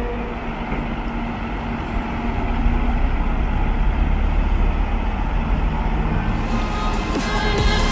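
Fendt tractor's diesel engine running steadily under load as the tractor drives over a corn silage clamp, packing it down with a rear roller. Music fades in near the end.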